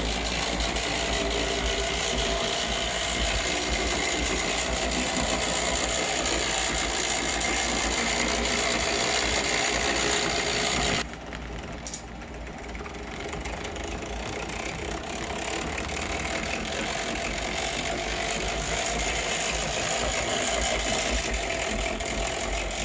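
Electric motor and gear drive of a 1936 O scale model steam locomotive built from a cast kit, running along the track with a steady whirring grind of gears. It drops in level about halfway through, then slowly builds back up.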